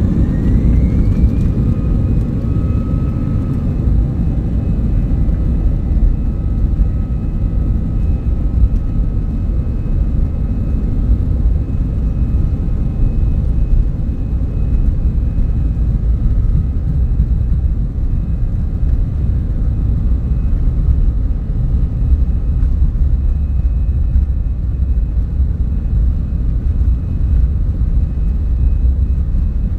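Jet airliner's turbofan engines heard from inside the passenger cabin while the plane rolls on the ground: a heavy steady rumble with an engine whine that rises over the first couple of seconds as thrust comes up, then holds steady. The deep rumble grows stronger in the second half.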